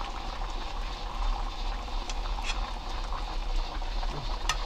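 Spicy red sea bream braise bubbling steadily in a pot on low heat, with a metal ladle clinking once against the pot near the end.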